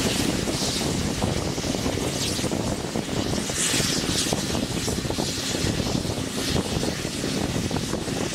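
Steam-hauled passenger train running along, heard from an open coach window: steady wheel-and-rail rumble with fine clatter, and a brief hiss every second or so.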